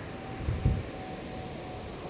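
Low, steady rumble of ocean surf, with one soft thump about two-thirds of a second in.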